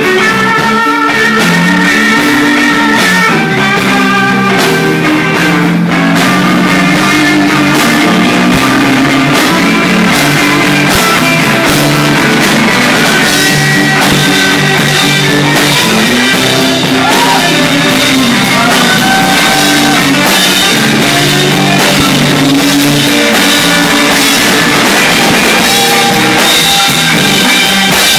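Live blues-rock band playing at full volume: an electric guitar lead with bent notes over drums and the rest of the band.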